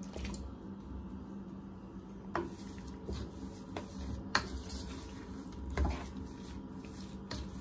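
A black plastic spatula stirring pineapple chunks into thick rava kesari in a nonstick pot, with soft squishing and a few light taps of the spatula against the pan.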